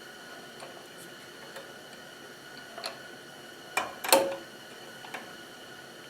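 Scattered light clicks and a few sharper knocks, the loudest two close together about four seconds in, over a faint steady hum: tools or parts being handled at a workbench.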